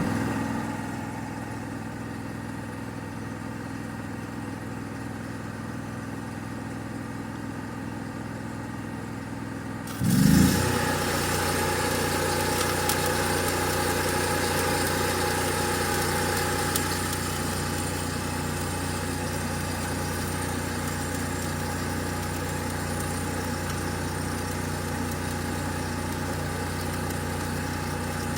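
Engine-driven welder running steadily. About ten seconds in it surges with a jump in loudness, and a steady crackling hiss sets in and carries on: the welder loading up as a stick-welding arc is struck.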